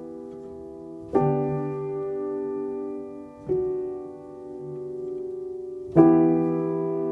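Background piano music: slow sustained chords, a new chord struck about a second in, another about three and a half seconds in, and a louder one near the end.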